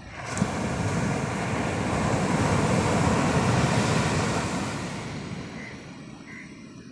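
Sea waves breaking and the surf washing up the sand: a rush that swells in the first second, is loudest around the middle, and fades away over the last couple of seconds.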